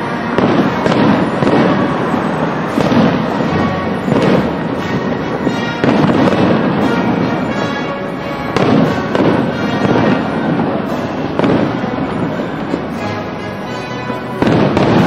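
Fireworks display: aerial shells launching and bursting in quick succession, a continuous run of overlapping bangs and crackles.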